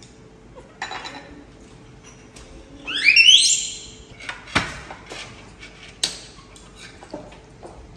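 A baby monkey gives one high squeal, rising in pitch, about three seconds in. Light clinks of chopsticks and bowls on the table come and go around it.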